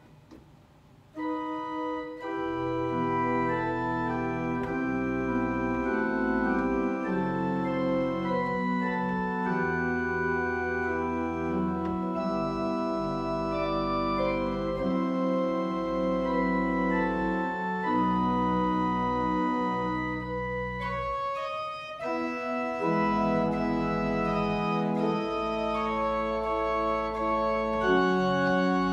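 Organ playing slow, sustained chords, with deep bass notes from the pedals. The music drops out briefly right at the start and comes back in about a second later. There is another short break in the chords about three-quarters of the way through.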